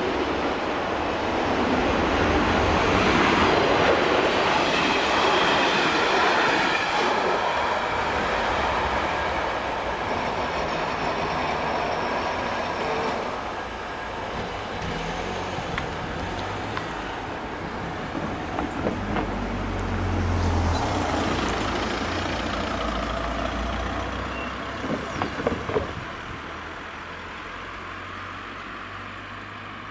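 Regional passenger train running past the level crossing, loudest in the first several seconds and then fading away. Later a car drives over the crossing, with a few sharp knocks near the end as tyres go over the rails.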